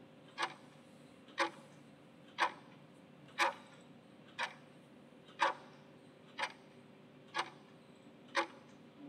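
Clock-style tick sound effect of a quiz countdown timer, nine sharp ticks about one second apart, counting down the seconds left to answer.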